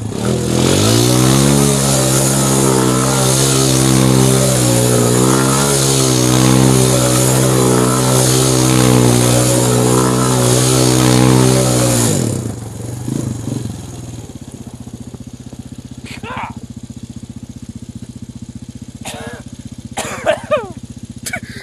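ATV engine running hard at high revs for about twelve seconds, its pitch wavering up and down, with a hiss over it. It then drops off to a steady idle.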